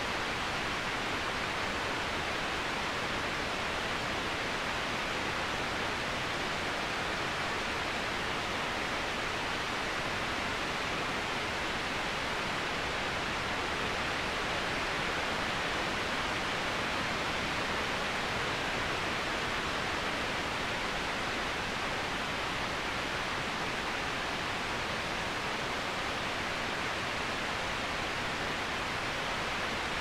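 Waterfall: a steady, even rush of falling water, with no separate splashes or other sounds standing out.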